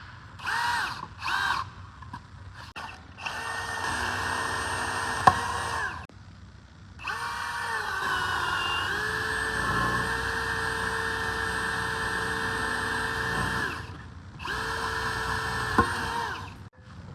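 A small electric motor whirring in bursts: two brief blips, then three longer runs of several seconds each, with a pitch that rises as it spins up and falls as it stops.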